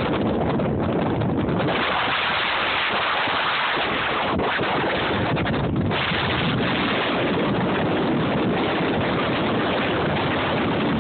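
Blizzard wind blowing hard across the microphone: a loud, steady rushing that swells and dips as gusts come through.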